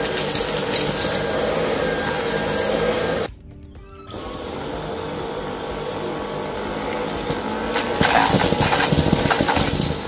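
Dyson V11 cordless stick vacuum running over carpet with a steady high motor whine. It drops away abruptly for under a second about three seconds in. Near the end it gets louder, with rattling as debris is drawn up through the head and crushed.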